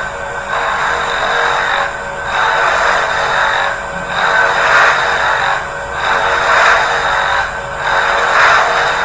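CNC milling machine cutting a hole in a brass bar with a thread mill: a steady cutting hiss over a constant high spindle whine, swelling and dipping about every two seconds as the cutter circles the hole.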